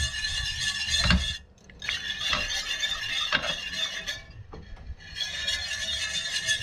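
Wire balloon whisk scraping and rattling against the bottom of a stainless steel frying pan as cold butter is whisked into a cream sauce. The scraping is continuous, with two short pauses, about a second and a half in and around four and a half seconds.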